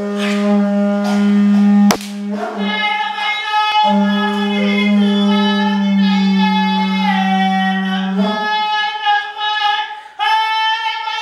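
A pūtātara (Māori conch-shell trumpet) blown in a long, steady low note, with a short break about a third of the way in, that stops about three quarters of the way through. Over it a woman chants in long, sliding phrases; her voice drops out briefly near the end and then starts a new phrase.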